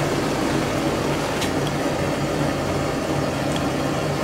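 Homemade propane venturi burner, built from black iron pipe reducers and a nipple, burning steadily: an even rushing flame noise with a low hum beneath it.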